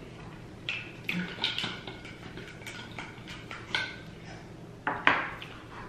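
Tableware being handled on a table: a string of clinks and light knocks, some ringing briefly, with the loudest clack about five seconds in.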